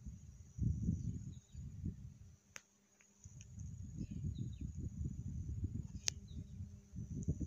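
Gusty wind rumbling on the phone's microphone, dropping out briefly about three seconds in, with a few faint high chirps.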